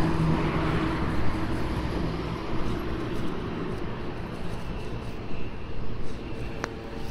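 A motor vehicle's engine hums nearby and fades away over the first few seconds, over a steady outdoor rumble. A Samoyed puppy's paws scrape at loose dirt as it digs. A brief, high, rising chirp comes near the end.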